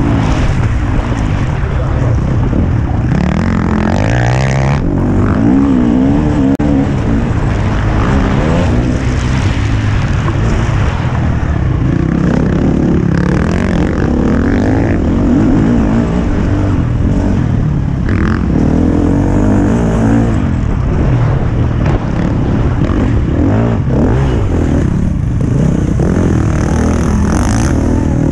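Motocross bike engine heard close up from the rider's helmet, revving up and down again and again with the throttle and gear changes.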